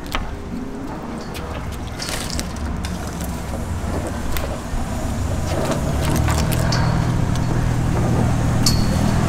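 A motor engine's low steady hum, growing gradually louder from about halfway through, with a few light clicks.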